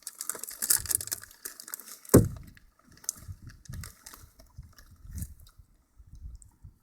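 A child chewing Doritos chips, with crackly crunching and rustling, and one loud thump about two seconds in.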